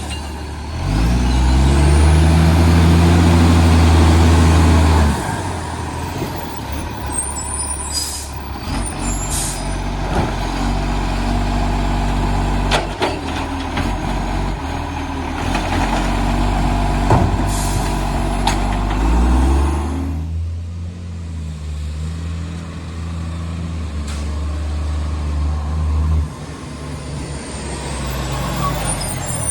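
Garbage truck engine revving hard for a few seconds near the start, then running unevenly and revving again about twenty seconds in, with sharp air-brake hisses and knocks in between. The engine has a massive exhaust leak.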